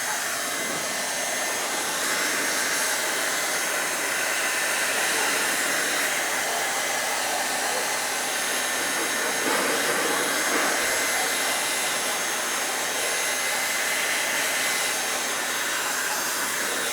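Electric heat gun running steadily, blowing hot air.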